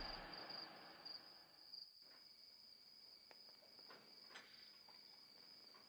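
Faint, steady cricket chirping, with a few soft ticks. A fading rumble dies away over the first two seconds.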